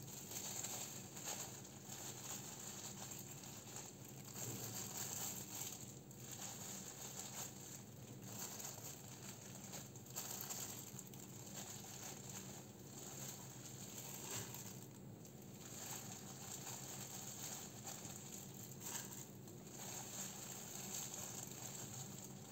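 Thin disposable plastic gloves crinkling and rustling as hands press sushi rice onto a nori sheet on a bamboo mat and lay fillings on it, with small irregular clicks throughout. A faint steady hum lies underneath.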